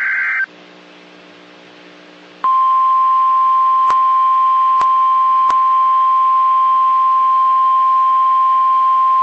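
NOAA Weather Radio EAS alert: a half-second squeal of SAME digital header data, then about two seconds of faint receiver hum and hiss, then the steady 1050 Hz warning alarm tone starts about two and a half seconds in and holds, with a few faint static clicks.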